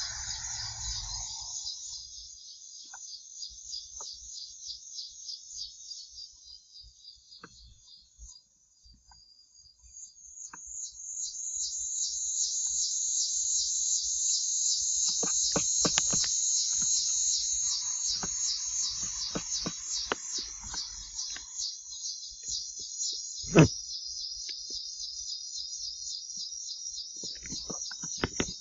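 Insects chirring outdoors in a dense, high-pitched, rapidly pulsing drone that thins out for a few seconds and comes back louder from about ten seconds in. Scattered faint clicks and one sharp knock about three-quarters of the way through.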